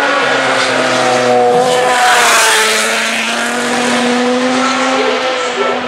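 MotoGP racing motorcycles, 800cc four-stroke prototype engines, at high revs as they pass close by at speed. The sound swells to its loudest about two seconds in, then eases as the bikes move away.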